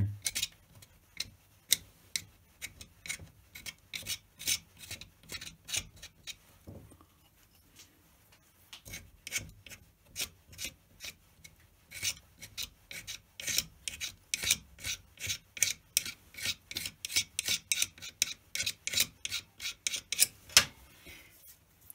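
Wire loop sculpting tool scraping soft plasticine flush with the surface of a plaster skull piggy bank, in short scraping strokes about two or three a second. The strokes thin out for a few seconds about a third of the way in, then pick up again.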